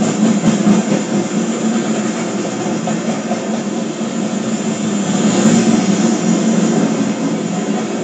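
Loaded coal train's gondola cars rolling past, a steady rumble of steel wheels on rail.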